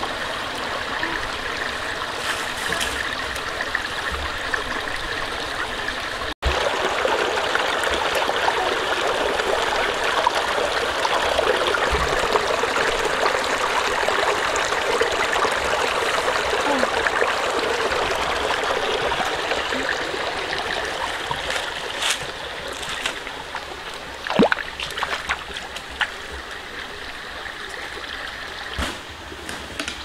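Shallow rocky stream running and trickling over stones: a steady rush of water that grows louder after a brief break about six seconds in and eases off in the last third. A few sharp knocks sound near the end.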